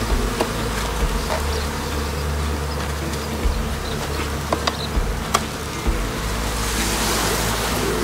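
Honeybees buzzing steadily around an open hive, with a few sharp clicks as the hive tool pries a frame loose. A steady low rumble runs underneath.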